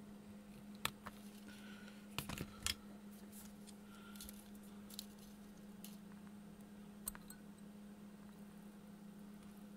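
Small hand tools clicking and tapping at a perfboard while a bare wire ground bar is fitted: a sharp click about a second in, a quick cluster of clicks a little after two seconds, and another near seven seconds. A steady low hum runs underneath.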